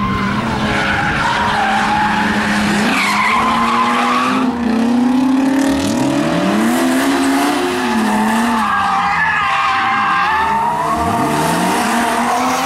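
BMW E36 3 Series drifting: its engine revs rise and fall again and again through the slides while the rear tyres squeal.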